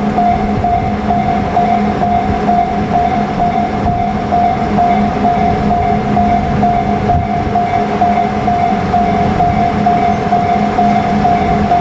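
Japanese level-crossing warning bell ringing over and over at an even pace, with a low rumble under it.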